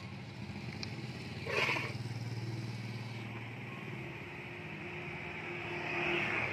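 A motorcycle engine running steadily at low revs, with a short noisy burst about one and a half seconds in and a hiss that grows louder near the end.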